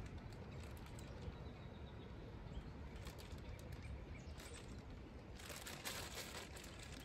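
Faint rustling and light clicks of a new saw chain and its packaging being handled, over a steady low outdoor background hum; the rustling is loudest for about a second, some five and a half seconds in.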